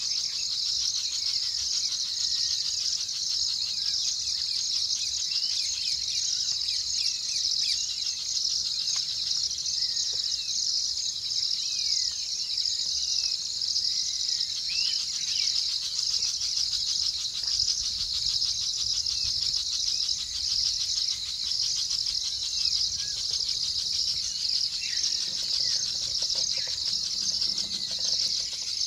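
Night chorus of crickets trilling steadily in a high, pulsing drone, with short chirps scattered through it.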